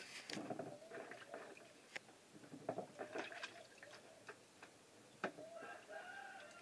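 Hands swishing and splashing chopped carrot and tomato in a plastic basin of water, with scattered small knocks and splashes. Faint wavering calls in the background.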